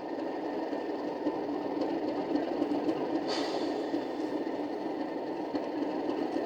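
Sound decoder in an OO gauge Accurascale Class 37 model locomotive playing the Class 37 diesel engine sound steadily through the model's small speaker. There is a brief hiss about three seconds in.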